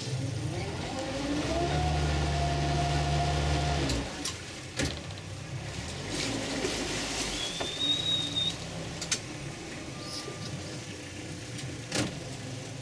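Tour boat's outboard motor revving up, its pitch rising, running steadily for a couple of seconds, then throttling back to a quieter idle about four seconds in. A brief high whistle sounds near the middle.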